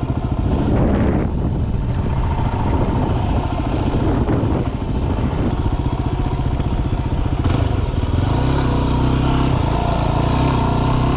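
Yamaha WR250R single-cylinder four-stroke dual-sport motorcycle engine running under way on a dirt road; from about eight seconds in it holds a steadier note.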